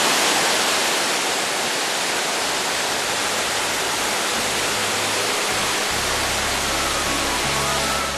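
Waterfall on a mountain river rushing steadily over rocks into a pool. Music fades in under the water about halfway through.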